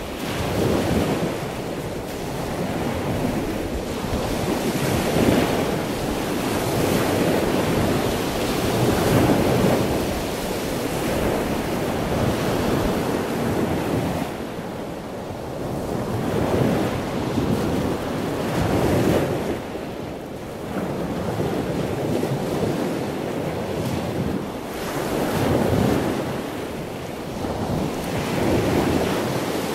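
Sea waves breaking and washing onto the shore, the surf swelling and easing every few seconds.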